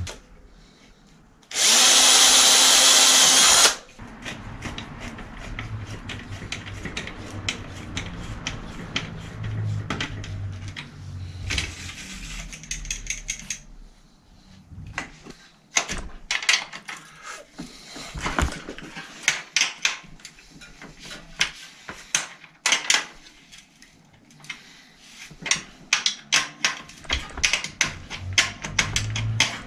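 A power drill runs hard for about two seconds near the start. After that comes a long stretch of irregular, sharp metallic clicks and rattles from hand work at a city bike's rear hub, growing busier in the second half.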